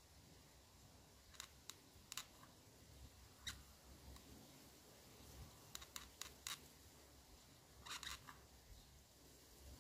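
Near silence with a scattering of faint small clicks, a quick run of them about six seconds in and a cluster about eight seconds in, from a hot glue gun's nozzle and a plastic charger connector being handled.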